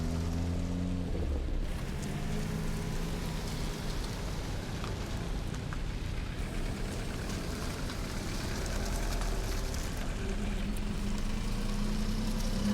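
Car engine running over a steady hiss of rain or tyre noise, its note fading after the first second or so and coming back stronger about ten seconds in, rising slightly in pitch near the end.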